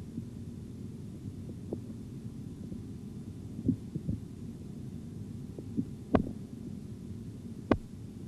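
Stethoscope recording over the arm's artery during blood-pressure cuff deflation: a steady low rumble with a few irregularly spaced knocks, the loudest two in the second half. These early irregular sounds are artifacts, not yet the regular Korotkoff tones.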